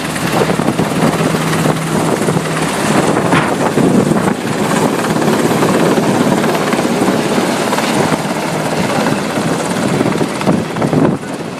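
Helicopter's rotor and turbine running loud and steady close by, with a low hum in the first few seconds.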